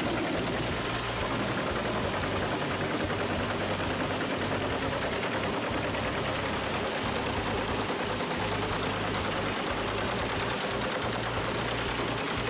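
Pezzolato wood chipper, driven by a John Deere tractor, chewing through a log and conifer branches fed in by a crane grab: a dense, rapid crackle of splintering wood over the steady hum of the engine.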